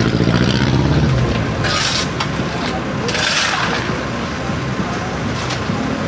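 Backhoe loader's diesel engine running, loudest in the first second or so, while steel shovels scrape across concrete pavement, with longer scrapes about two and three seconds in.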